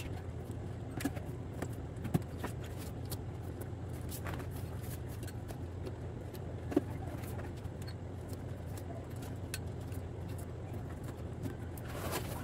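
Handling of a large cardboard flat-pack box being opened: scissors snipping at the packing and scattered faint taps, scrapes and rustles of the cardboard, with a couple of sharper taps about two and seven seconds in. A steady low hum runs underneath.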